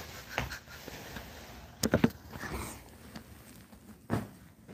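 Handling noise from a phone being picked up and carried: rustling with sharp knocks, the loudest a double knock about two seconds in and another near the end.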